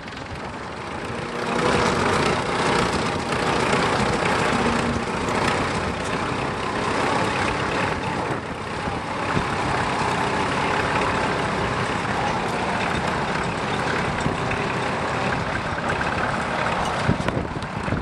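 Vintage tractor engines running under load as they pull ploughs through stubble, louder about a second and a half in.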